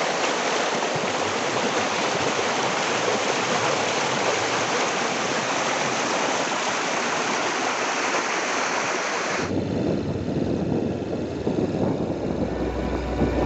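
Waterfall: a steady rush of falling water that cuts off abruptly about two-thirds of the way in. It gives way to a lower rumbling sound, with a deep hum swelling near the end.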